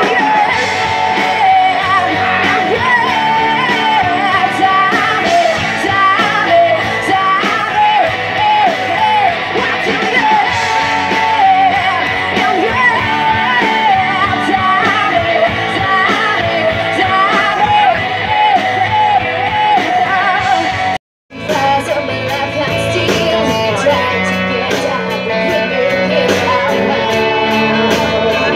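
Live rock band playing through PA speakers: a girl singing lead over electric guitars, bass and drum kit. The sound drops out for a moment about three-quarters of the way through, then the band plays on with a steady, prominent drumbeat.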